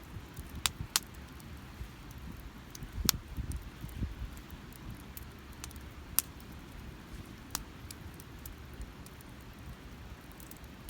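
Campfire crackling, with a handful of sharp, separate pops from the burning wood over a steady low rumble.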